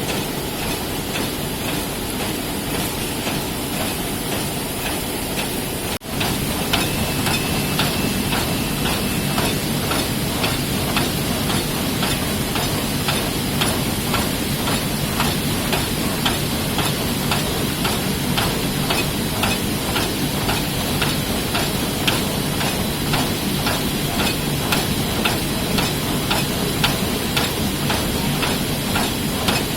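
Heidelberg Speedmaster SM72 sheet-fed offset press running in production, a steady mechanical din with a regular rhythm of rapid clicks from its sheet cycle. The sound drops out briefly about six seconds in, then returns slightly louder.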